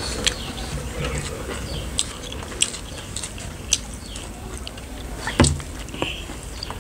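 Eating by hand from metal plates: fingers mixing rice and curry, with chewing and a few sharp clicks and taps against the plates. The loudest is a knock about five seconds in.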